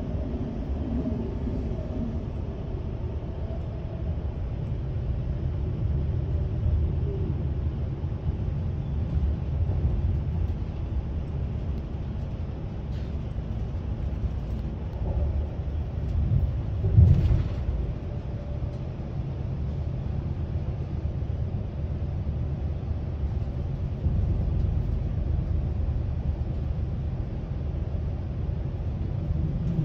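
Steady low rumble of a ČD railjet Siemens Viaggio Comfort passenger coach running along the line, heard from inside the coach, with a brief louder knock about seventeen seconds in.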